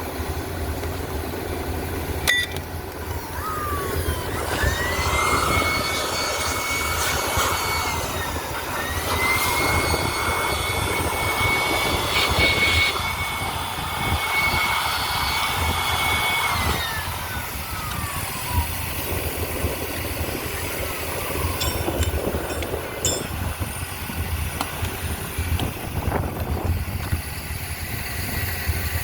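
Steady low hum of an idling engine. Over it a motor whines up in pitch, runs at a steady speed with a grinding hiss, dips and picks up again, then winds down.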